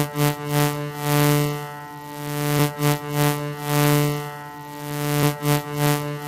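Background music: a sustained synthesizer chord that swells and fades about every three seconds, with a few short percussive hits in the second half.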